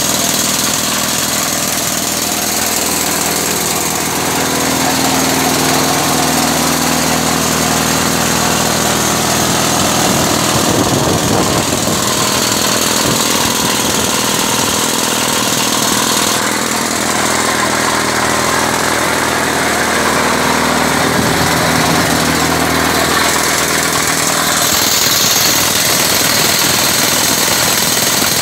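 Hydraulic top-hammer (drifter) rock drill on an FMT 115 crawler drill rig, hammering steadily as it drills a blast hole in rock. The rig's engine runs loud underneath the percussion.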